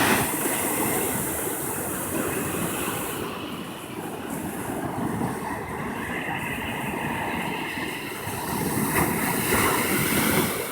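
Ocean surf washing onto the beach: a steady rushing noise that eases off a few seconds in and swells again near the end.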